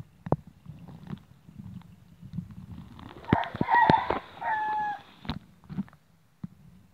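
A rooster crowing once, for about two seconds, starting about three seconds in, with its last note held and dropping slightly. Scattered sharp knocks and clicks come before and after it.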